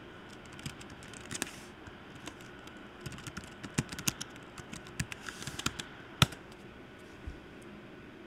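Typing on a computer keyboard: irregular key clicks, with one sharper, louder click about six seconds in.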